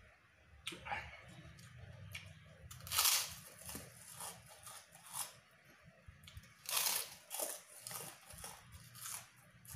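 A man biting into and chewing white kerupuk crackers (puffed tapioca crackers) with his mouth close to the microphone: a string of crisp crunches, loudest about 3 seconds in and again about 7 seconds in, with wet chewing between.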